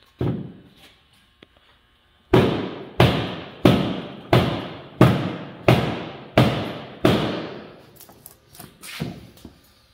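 Hammer blows driven through a 2x4 against the dented steel rear quarter panel of a Nissan 240SX to push the dent out. Eight hard, evenly paced strikes about two-thirds of a second apart, each ringing out briefly, then a few lighter knocks.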